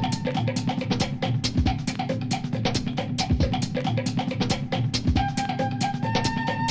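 Background music with a steady drum-kit beat, about four sharp hits a second over deeper bass-drum thumps, with a short repeating melody.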